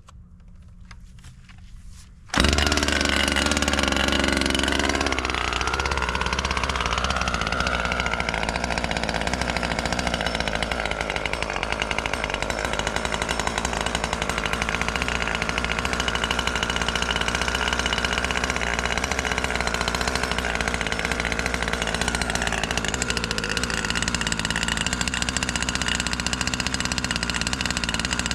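Brand-new Husqvarna 540 XP Mark III two-stroke chainsaw starting up about two seconds in, chain brake set. Its engine speed wavers for a few seconds, then settles into a steady run, with a shift in pitch about 22 seconds in.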